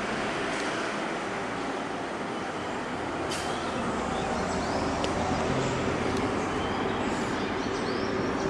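Steady city street traffic noise from the road below, with a few faint bird chirps near the end.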